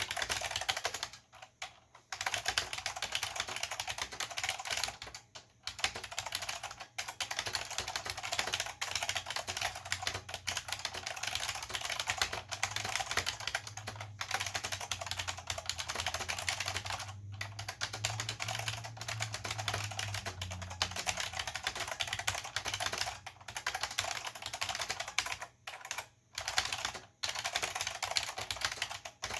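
Continuous fast typing on a Chicony KB-5301 keyboard with Chicony buckling spring switches, with a few short pauses. The keys click and bottom out with a hollow, light sound.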